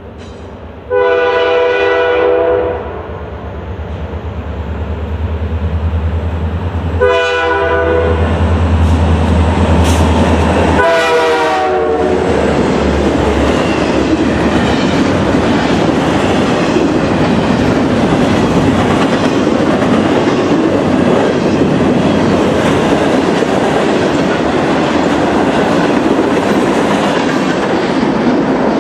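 Norfolk Southern diesel freight locomotive sounding its multi-tone air horn three times: a long blast about a second in, a shorter one around seven seconds, and a third that drops in pitch as the locomotive passes, all over a deep engine rumble. Then the double-stack intermodal cars roll by with steady wheel noise and clickety-clack.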